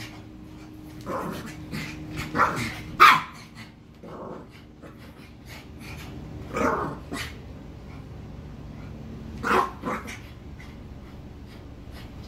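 Small dogs barking in rough play, with short sharp barks scattered a second or a few seconds apart and some low growling.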